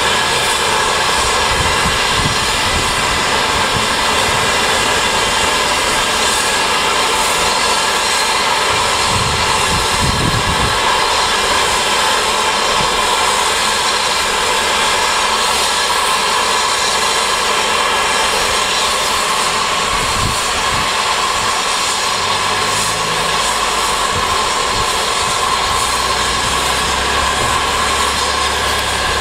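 Steady, loud hiss of steam escaping from two standing steam locomotives, No. 1264 and Lord of the Isles, holding an even level throughout, with a few brief low rumbles.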